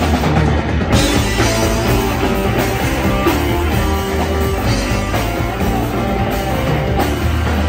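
Rock band playing live: two electric guitars, electric bass and a drum kit together at a steady, loud level.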